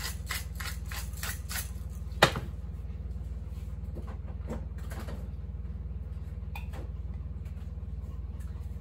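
Pepper grinder being twisted over a skillet, quick rhythmic gritty strokes about three a second that stop a second and a half in. They are followed by a sharp knock as it is set down, and a few faint knocks later. A steady low hum runs underneath.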